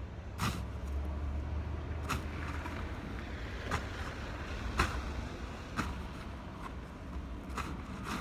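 Snow shovel striking and scraping the ground in short strokes, roughly once a second, over a steady low rumble.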